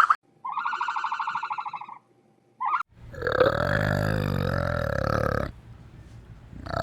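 Animal calls: a high, wavering call lasting about a second and a half, a very short call, then a long, low, rough call lasting about two and a half seconds, with another low call starting at the very end.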